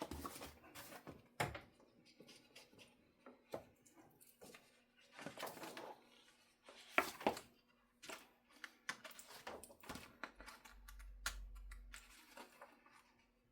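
Irregular handling noise from hands working with guitar-kit parts and the instruction booklet: rustles, clicks and light knocks. The sharpest are a pair of clicks about seven seconds in, and a short low rumble comes near eleven seconds.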